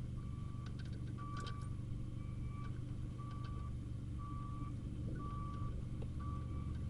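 An electronic warning beeper sounds steadily at about one half-second beep a second over a low steady hum. A few light clicks come through as wire terminals are worked out of a plastic turn-signal connector.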